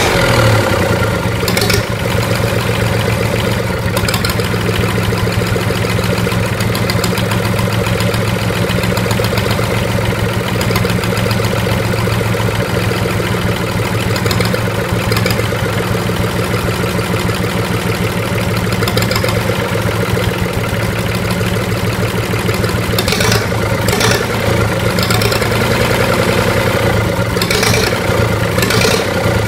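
Mitsubishi L3E three-cylinder diesel engine running steadily at idle, with a few short clicks over it, several of them near the end.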